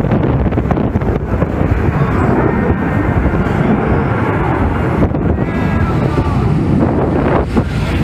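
Wind buffeting the camera's microphone: a loud, steady, rough rumble.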